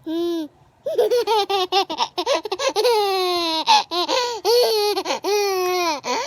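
Baby laughing: a short squeal, then about five seconds of rapid, high-pitched laughter broken by longer falling notes.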